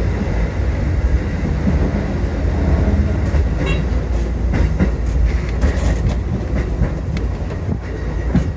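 Kotoden Kotohira Line electric train running, heard from inside the cab: a steady low rumble with wheels clicking over rail joints, and a run of clicks midway as it crosses a set of points.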